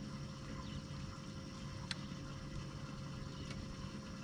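Steady low hum of a bass boat's electric trolling motor, with a thin constant whine over it. Two short sharp clicks come about two and three and a half seconds in.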